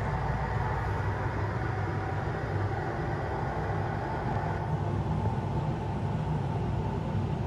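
Steady mechanical hum and air noise inside an enclosed Ferris wheel gondola: a constant low drone with a faint higher whine over it.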